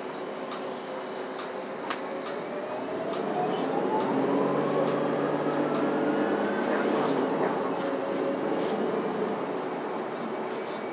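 Los Angeles Metro city bus driving, heard from inside the cabin: as it pulls ahead the running noise grows louder and a drivetrain whine climbs steadily in pitch over several seconds. A few light clicks come in the first couple of seconds.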